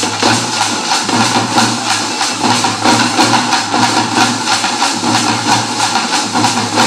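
Thappattam drumming: an ensemble of parai (thappu) frame drums beaten with sticks in a fast, steady rhythm, with barrel drums playing along.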